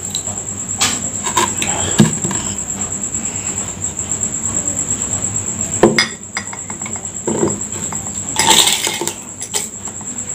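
Ice-filled glass mugs clinking and knocking on a wooden table as they are moved, then a metal spoon scraping and rattling ice in a glass near the end. A steady high-pitched whine runs underneath.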